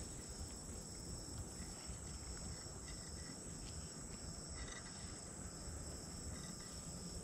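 Faint, steady high-pitched trilling of insects, over a low, even background rumble.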